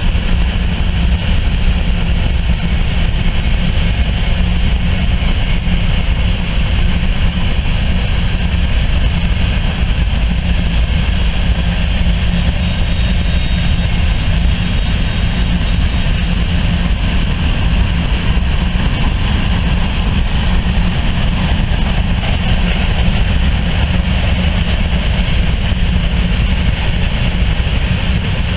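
Covered hopper cars of a BNSF grain train rolling past: a loud, steady noise of steel wheels running on the rails.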